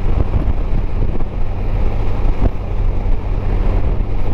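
Honda Gold Wing's flat-six engine running at a steady cruise, with wind rushing over the microphone.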